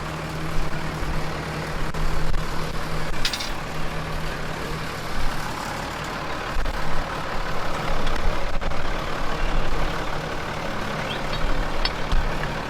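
Tractor diesel engine idling steadily, with wind buffeting the microphone in uneven low rumbles and a few faint clicks.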